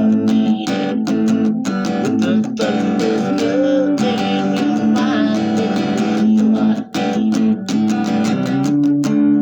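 Music led by a strummed guitar, with chords struck in a steady rhythm.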